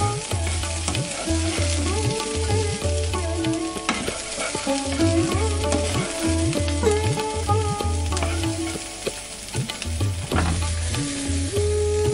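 Red lentil batter fritters frying in hot oil in a miniature steel wok, a steady sizzle, with a metal spoon now and then clinking against the pan. Background music with a melody and a low repeating beat plays over it.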